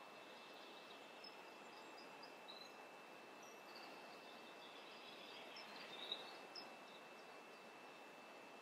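Near silence: faint room tone with a steady thin high whine under a soft hiss, and a few faint, short, high chirps scattered through it, most of them around the middle.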